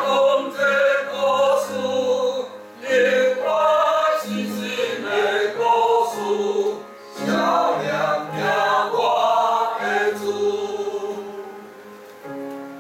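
Small mixed church choir of men and women singing a hymn in parts; the last phrase dies away near the end.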